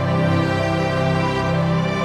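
Instrumental background music with long held chords.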